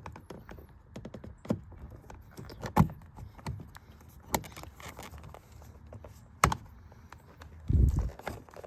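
Irregular clicks and knocks of a plastic window-switch bezel being pried and worked loose from a car door panel with a flathead screwdriver, with a heavier low thump near the end.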